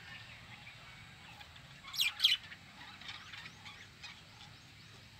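Budgerigars chirping in an aviary: two loud, sharp calls close together about two seconds in, then a run of shorter, fainter chirps.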